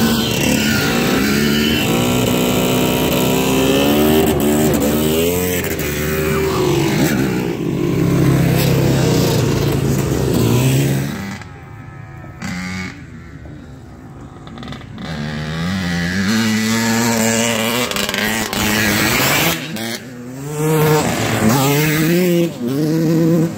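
Off-road dirt bikes and a quad bike passing on a dirt track, engines revving up and down through the gears. The engines fade about halfway through, then more bikes come up and rev past near the end.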